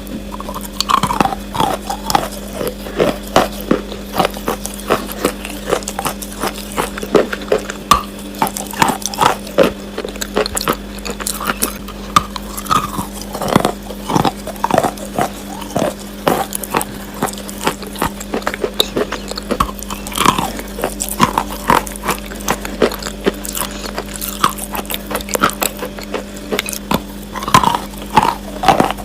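Wet chalk being bitten and chewed close to the microphone: rapid, irregular crunches and crumbly snaps, over a steady low hum.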